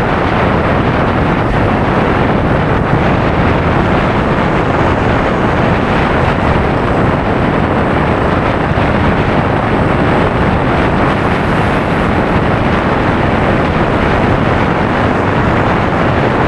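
Loud, steady wind rushing over the microphone of a road bike rider at speed, drowning out everything else.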